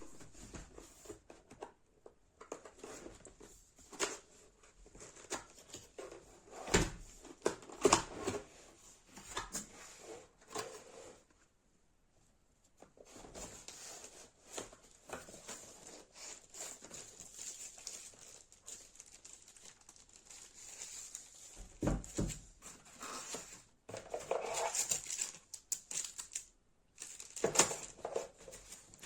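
Packaging rustling and crinkling as it is handled, with scattered, irregular knocks and clicks and a faint steady hiss underneath. There is a quiet pause of a second or two near the middle.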